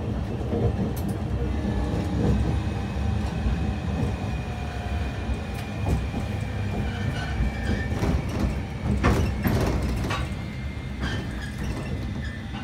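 Sapporo City Tram 8510-series streetcar running, heard from inside the cab: a steady low rumble of wheels on street track with a faint high whine from its Mitsubishi IGBT VVVF inverter, and a few sharp clacks about nine seconds in.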